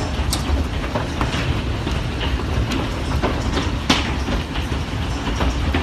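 Hailstorm: hailstones striking in irregular sharp cracks over a steady low rumble.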